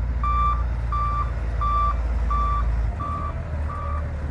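Reversing alarm beeping steadily, about one and a half beeps a second, over a low engine rumble that drops away about three seconds in.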